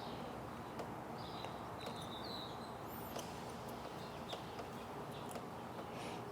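Quiet outdoor background with a few short bird chirps and some light clicks.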